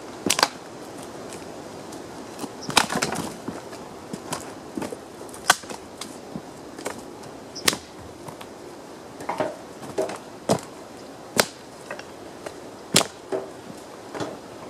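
Dry branches being snapped by hand: a run of sharp wooden cracks, about seven loud ones a second or two apart, with lighter crackling of twigs between them.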